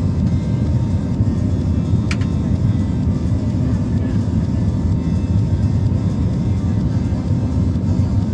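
Steady low rumble of an Airbus A320 airliner heard inside the passenger cabin, with a single sharp click about two seconds in.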